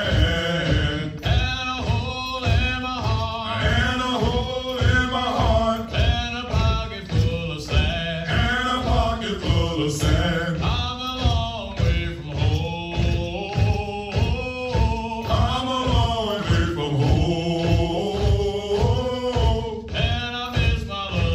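Male voices singing a Marine Corps hiking cadence over a steady beat.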